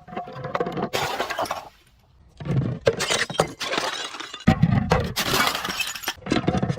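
Glass bottles being crushed, crunching and shattering in long crackling runs, with a short lull about two seconds in and a low thud partway through the later run.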